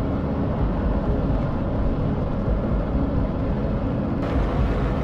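Volcanic eruption rumble: a steady, loud, deep rumble with a hiss above it, growing brighter about four seconds in.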